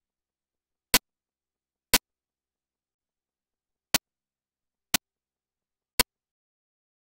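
Sharp digital clicks about once a second, five in all with one beat skipped, in an otherwise dead-silent audio track. No game, crowd or commentary sound.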